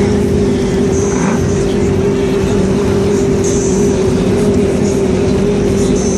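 Motorboat engine running steadily at low speed, a constant even hum over water and wind noise.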